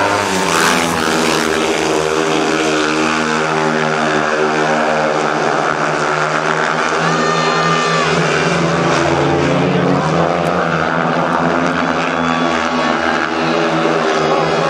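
Speedway motorcycles racing: their 500 cc single-cylinder methanol engines run hard, a loud, continuous engine drone that shifts slowly in pitch.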